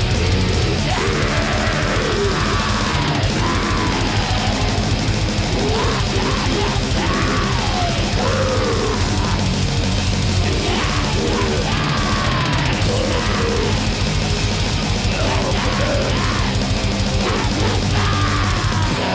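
Black metal band playing live: distorted electric guitars, bass and drums in a dense, unbroken wall of sound.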